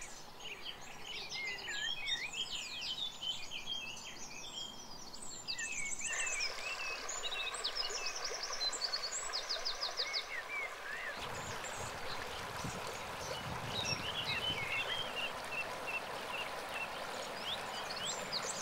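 Shallow river water rushing over cobbles, a steady wash that grows fuller about six seconds in and again, deeper, about eleven seconds in. Several birds chirp and trill over it, busiest in the first half.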